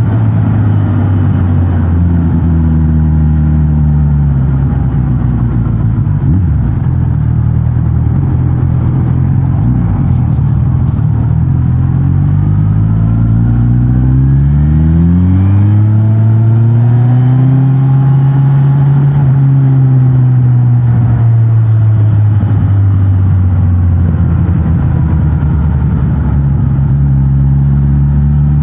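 Suzuki GSX-S1000GT's inline-four engine through its stock exhaust, riding at low revs, then pulling up in pitch about halfway through, holding and easing off again.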